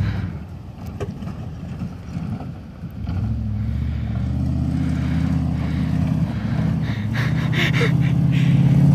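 Dodge Ram pickup's V8 engine pulling hard across a dirt field toward the listener. It is faint at first and grows steadily louder from about three seconds in as the truck builds speed for a jump.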